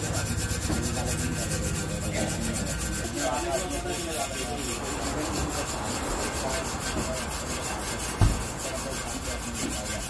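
Steel wire scrubber rubbed quickly back and forth over the stainless steel tub of a washing machine, a continuous scratchy scouring of metal on metal. A single dull thump sounds about eight seconds in.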